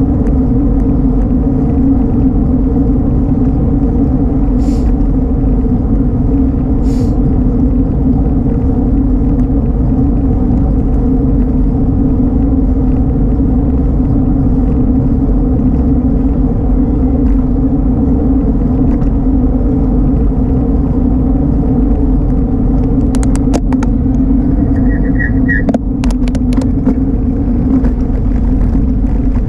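A bicycle riding on asphalt, heard through the bike-mounted camera as a loud steady rumble of road and wind noise. Several sharp knocks come near the end.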